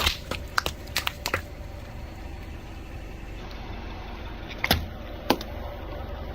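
Car rolling slowly over water balloons: a low, steady engine rumble with a quick run of sharp clicks in the first second and two louder snaps near the end.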